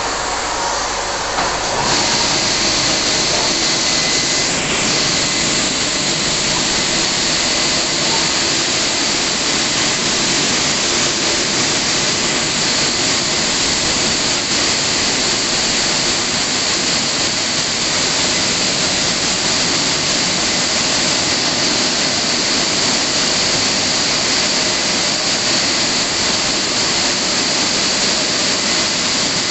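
Rollover car wash's dryer blowers running, a loud steady rush of air that steps up to full power about two seconds in.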